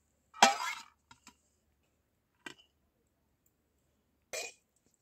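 Metal spoon clanking against an aluminium plate while serving rice, a sharp ringing knock about half a second in followed by a few lighter clinks. Near the end a steel ladle knocks once inside an iron wok.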